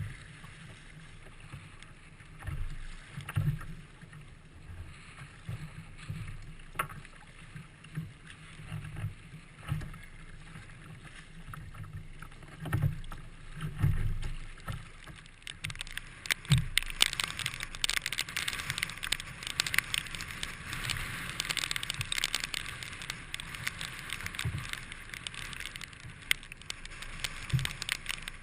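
Gusty wind buffeting the microphone in low thumps, with a louder hiss of splashing water from about halfway through.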